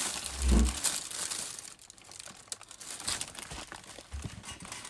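Crinkling and rustling of a white patent Pleaser Flamingo-3028 thigh-high boot being handled, with a dull heavy thump about half a second in.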